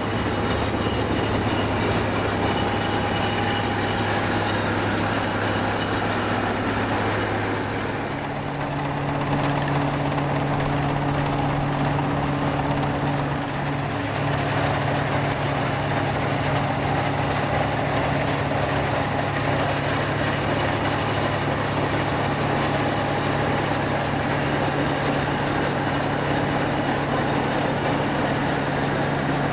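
Engines of vintage Massey Ferguson combine harvesters running steadily while cutting a crop. The engine note steps up about eight seconds in, then holds.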